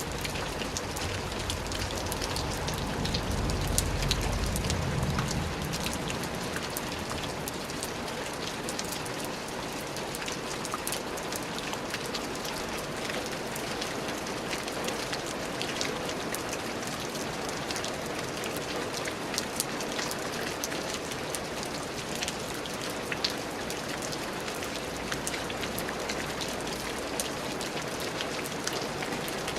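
Steady rain falling, with individual drops ticking sharply through the hiss. A low rumble swells and fades a few seconds in.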